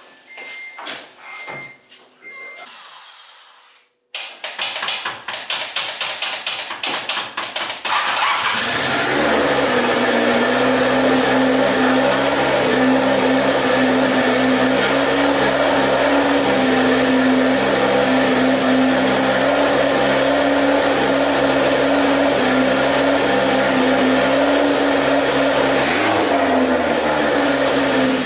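A few short beeps, then the turbocharged Honda Civic wagon's engine cranks on the starter for about four seconds, catches and settles into a steady idle. It is running on the fuel pump now fed through a newly installed relay.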